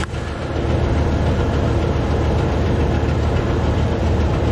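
Chevy Silverado's 6.0-litre V8 idling rough, heard close to the open engine bay, a steady low running sound that a mechanic has put down to a stuck valve.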